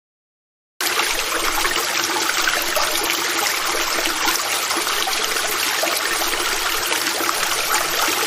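Bathtub tap running, water pouring steadily into the tub; it starts abruptly about a second in after a moment of dead silence.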